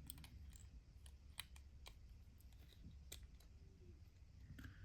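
Near silence broken by faint, scattered light clicks and taps of small hand tools working on a wristwatch.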